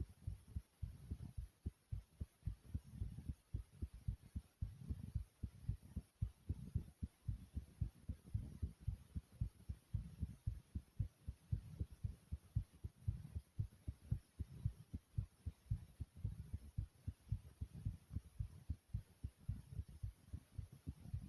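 Fast, pounding heartbeat: a steady, quick rhythm of low thumps.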